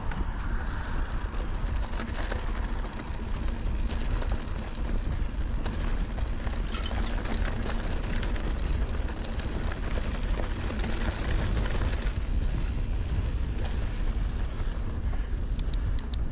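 Mountain bike riding on a dirt trail: knobby tyres rolling and wind buffeting the camera microphone as a steady rumble. A thin high whine runs through most of it, and a quick run of sharp ticks comes near the end.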